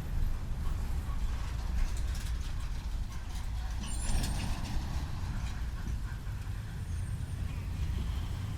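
Traffic at a busy city intersection: a steady low rumble of vehicle engines and tyres, with a brief high hiss about four seconds in.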